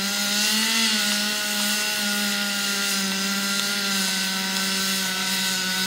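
Chainsaw running at high, steady throttle while cutting through wood, with a slight rise in pitch about half a second in.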